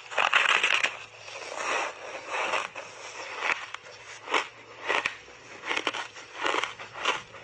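Teeth biting into a dry, crunchy block of purple ice coated in milk powder, with a loud crunch in the first second. The ice is then chewed in crunches a little more than one a second.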